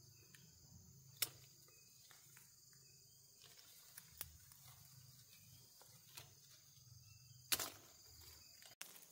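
Near silence with a faint steady low hum and a few short, sharp clicks or knocks, the loudest about a second in and near the end.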